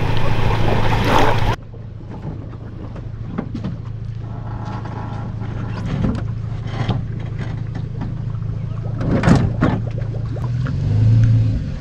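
Small engine of a 7.5 hp surface-drive mud motor idling with a steady low drone, with a few short knocks around the boat. A louder, rougher noise fills the first second and a half and cuts off abruptly.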